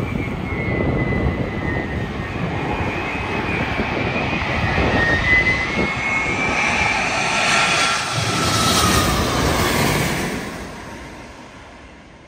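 Boeing 787-9's Rolls-Royce Trent 1000 jet engines on landing approach, passing low overhead: a jet whine whose tones slowly fall in pitch, building to its loudest about eight to ten seconds in, then fading away.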